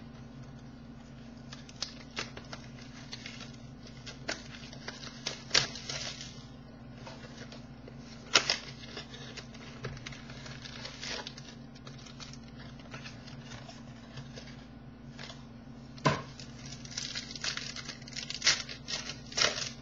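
Handling and opening a cardboard mini box of baseball cards: scattered sharp rustles, crinkles and tearing of pack wrappers, busiest near the end, over a steady low hum.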